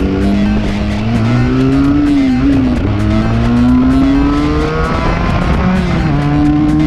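Benelli 302R's parallel-twin engine accelerating, its revs climbing, dipping back briefly as gears change about two and a half seconds in and again around five seconds, then rising once more.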